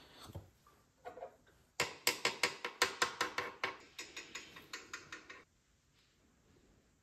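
A quick run of sharp clicks, about four or five a second, lasting about three and a half seconds and stopping suddenly.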